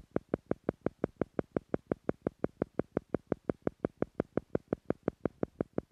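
Steady train of short, evenly spaced beeping pulses, about five a second: the theta-frequency beat sound of a guided meditation, meant to slow the listener's brainwaves to the theta level.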